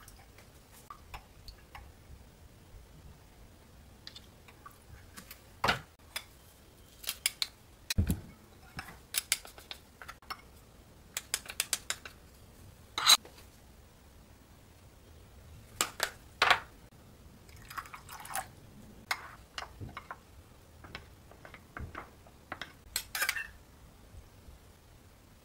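Metal spoons and measuring spoons clinking and tapping against a ceramic bowl and a glass bowl while liquid seasonings are poured and spooned in: scattered clinks and short pours, the sharpest click about halfway through.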